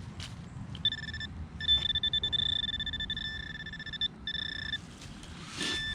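A metal detector's electronic signal tone, a steady high beep held for a few seconds with short breaks as the coil sweeps over a target. The detectorist reads the signal as deep iron.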